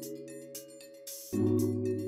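Background music: held synth chords over a steady ticking beat, with a new, louder chord coming in about a second and a quarter in.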